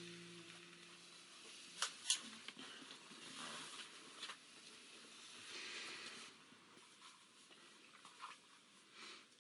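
The last held note of a hymn fades out within the first second, leaving a quiet small room. Two sharp clicks come close together about two seconds in, with a few soft rustles and knocks after them, the small noises of people shifting and handling things between songs.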